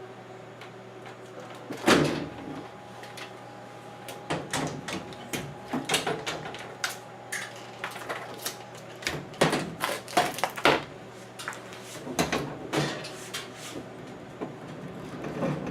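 Scattered plastic clicks and knocks from handling a washing machine's replacement lid lock and its wire clip while fitting them into the top panel. The loudest knock comes about two seconds in, over a steady low hum.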